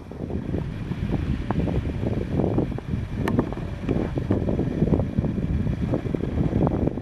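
Wind buffeting the camera microphone: a loud, gusty rumble that comes in suddenly and flutters unevenly.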